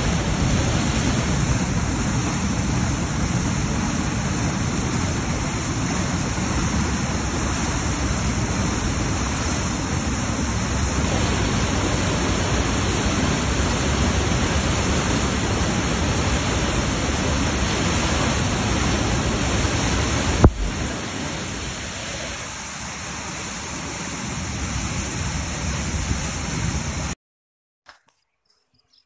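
Muddy flash-flood torrent rushing down a valley: a dense, steady noise of churning water, with one sharp knock about two-thirds of the way through. It cuts off suddenly near the end.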